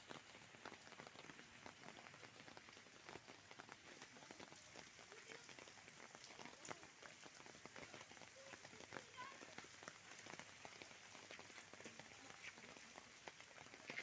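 Faint, steady rain falling on surfaces, with many small drop ticks scattered throughout.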